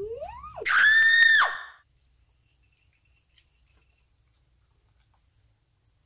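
A child's short, high-pitched squeal: a quick rising cry that jumps to one high held note for under a second, then stops. Crickets buzz faintly throughout.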